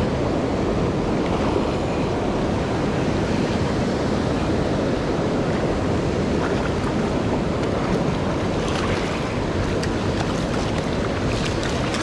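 Steady rush of wind buffeting the microphone and river water from a boat under way, with a few faint clicks near the end.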